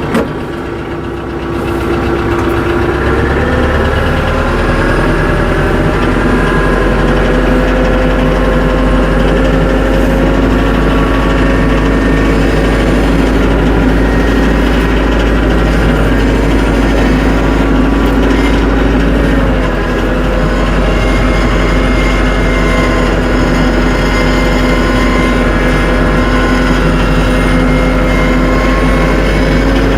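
TYM 474 compact tractor's diesel engine running steadily, its pitch rising about two seconds in as the revs come up, with a brief dip in speed about two-thirds of the way through.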